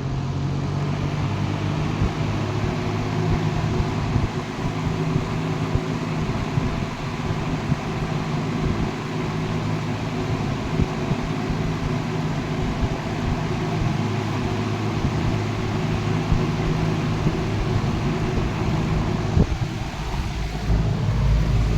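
1962 Dominion two-speed box fan, model 2067-D, running on high speed: a steady motor hum with its overtones under the rush of air from the heavy steel blades, with no mechanical noises, the sign of a freshly serviced, well-lubricated motor. A single click comes about three-quarters of the way through.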